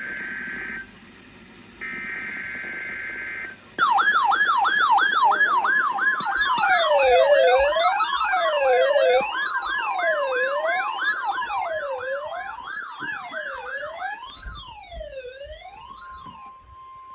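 Two short bursts of EAS digital header data tones, then weather alert radio alarms sounding together: a fast warbling siren yelp joined by a slower rising-and-falling siren wail over a steady high alert tone, fading away near the end.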